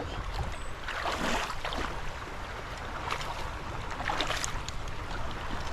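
Creek water running steadily, with wind rumbling on the microphone and a few brief sharper sounds, about three.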